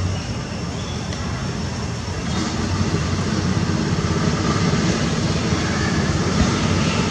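Steady low rumble of distant engine noise, swelling about two seconds in.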